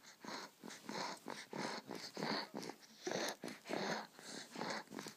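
A pet animal wheezing: quick, noisy breaths, about three a second, without a clear pitch.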